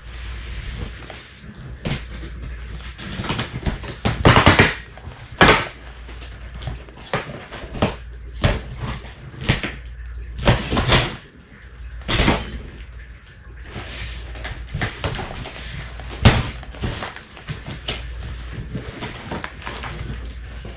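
A large cardboard shipping box being opened and its packing handled: irregular rustling, scraping and knocking, with a few louder rips and knocks, over a steady low hum.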